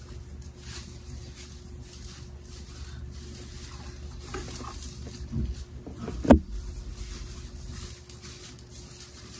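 Handling noise from fitting together sections of an artificial Christmas tree: rustling with a few soft thumps and one sharp knock about six seconds in.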